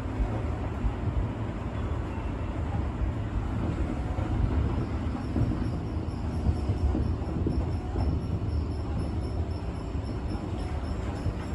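Tobu electric commuter train running with a steady low rumble, heard from inside the car as it pulls into its terminal station. A faint, rapid, high-pitched pulsing comes in about halfway through.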